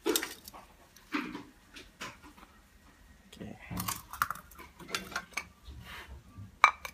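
Irregular knocks and clinks of cooking utensils and food containers being handled, a dozen or so separate sharp strokes, loudest near the start and just before the end.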